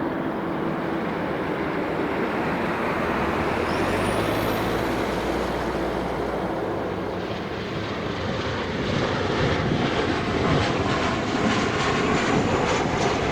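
Boeing 777 freighter's GE90 jet engines roaring steadily. A faint rising whistle comes about four seconds in. The roar grows louder and rougher, with a fluttering crackle, over the last five seconds.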